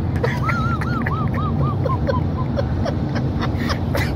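Steady road and engine noise inside a moving car's cabin. Starting about half a second in, a run of short, high squeaky whines fades out over about two seconds.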